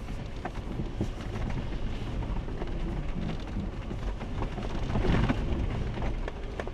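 Jeep driving slowly over a rough, rutted dirt trail, heard from inside the cab: a steady low rumble with scattered knocks and rattles as the tyres crawl over bumps, growing louder about five seconds in.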